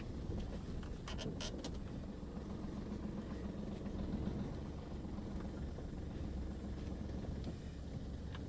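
Steady low running noise of a Chevrolet Beat hatchback driving slowly, heard from inside the cabin, with a few faint clicks about a second in.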